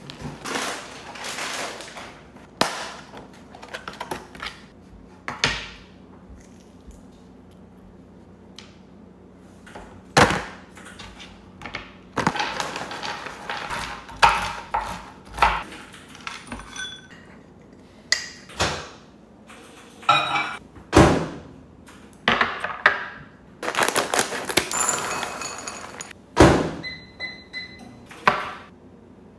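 Kitchen food-prep handling sounds: plastic produce containers set down on a counter, a knife chopping almonds on a cutting board, and other clinks and thunks, as many separate short knocks and scrapes.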